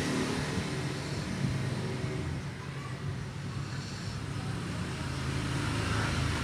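A steady, low engine hum, like a motor vehicle running.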